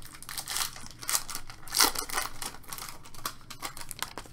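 A trading card pack wrapper being torn open and crinkled by hand: a quick run of sharp crackles and tearing.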